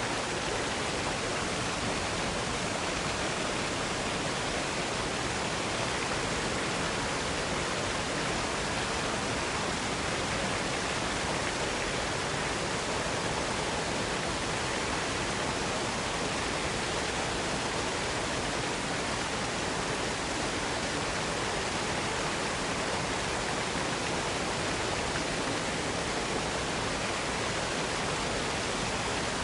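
Waterfall rushing in a steady, even hiss, with no changes or separate events.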